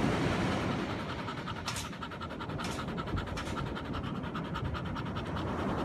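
Dog panting in quick, steady breaths with its mouth open.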